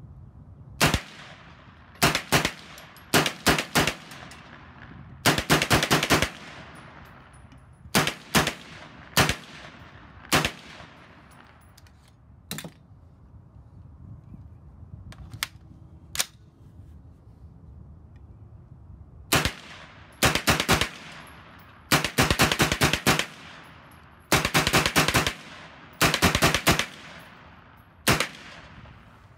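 Colt 9mm AR-pattern blowback carbine firing single shots, quick pairs and rapid bursts of several rounds each, with pauses of a few seconds between strings. The longest bursts come about five seconds in and in a run of strings in the back half.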